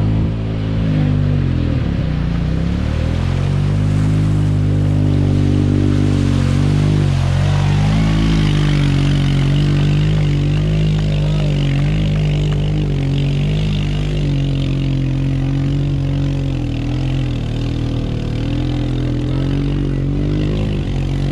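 An ATV engine running steadily at low revs, its pitch even apart from a brief dip about two seconds in.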